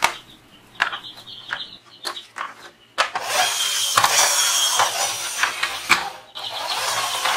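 Plastic toy double-decker bus: a few clicks as it is handled, then about three seconds in its wheels and gears start a loud, steady whirr as it runs across the floor. It knocks into another toy car near the end and the whirr goes on.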